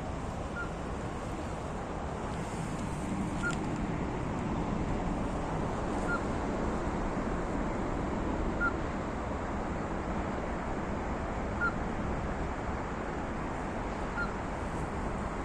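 Ruddy-breasted crake calling: single short, sharp notes spaced about every two and a half to three seconds, six in all, over a steady rushing background.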